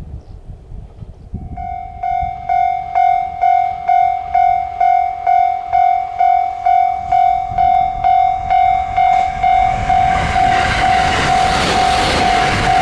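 Japanese level crossing warning bell starting to ring about a second and a half in, an electronic ding repeating about twice a second, which signals a train approaching. Near the end the rumble of the approaching train rises under the bell.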